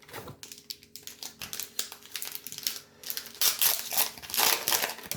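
Trading-card pack wrapper crinkling and crackling in the hands as the pack is opened, in quick irregular bursts that grow louder past the middle.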